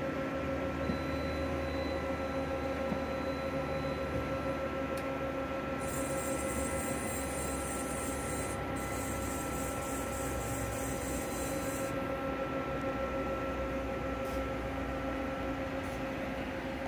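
Steady hum of a powered-up vertical machining center idling, with several steady whining tones over a low drone. A high hiss comes in for several seconds midway.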